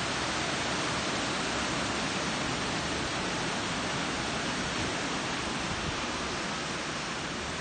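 River water rushing over a weir: a steady, even rush of white water.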